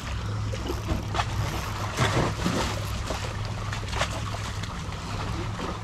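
Small waves lapping and splashing against shoreline rocks in shallow water, with a few sharper splashes, over a steady low rumble.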